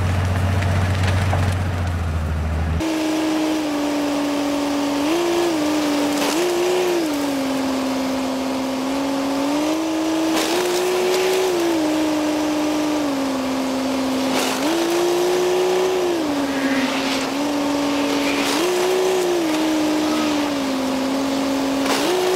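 Railway snowplough pushing through deep snow: a low steady hum for the first few seconds, then a loud machine whine that steps up and down in pitch every couple of seconds over a hiss of thrown snow.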